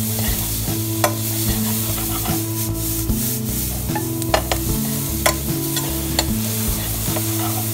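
Chopped vegetables sizzling in hot oil in a pan as a spatula stirs and scrapes them, with occasional sharp clicks of the spatula against the pan.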